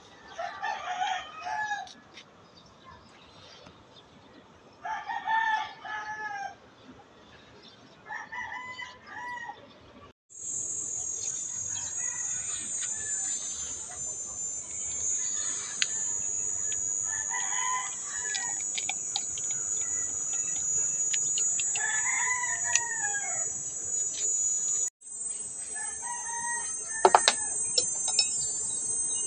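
Roosters crowing again and again, about eight drawn-out crows with pauses between them. From about ten seconds in, a steady high-pitched insect drone joins and runs on beneath them, and there is a single sharp click near the end.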